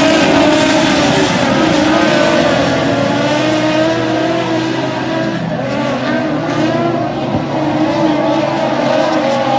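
Several dirt-track race cars' engines running hard as the pack laps the oval, the overlapping engine notes rising and falling as the cars come off the throttle and accelerate again.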